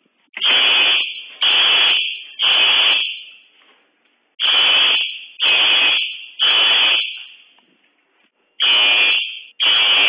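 Simplex 4903-9423 fire alarm horn/strobe sounding the code-3 temporal evacuation pattern: three loud blasts about a second apart, a short pause, then three more, again and again.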